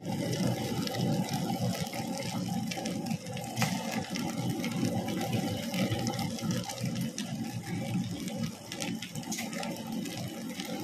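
Tilting table-top wet grinder running with dal batter: its stone rollers turn and churn the wet batter in the steel drum, a steady churning with scattered small clicks. The machine's running sound is very low.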